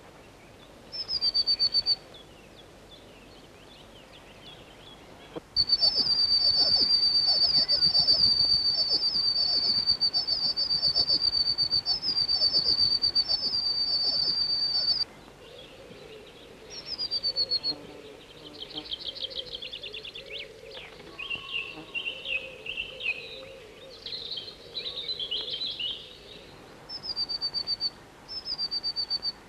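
Chickadee calls: a short call about a second in, a long loud run of rapidly repeated high notes from about five to fifteen seconds, then scattered calls and two short calls near the end. Each run starts and stops abruptly.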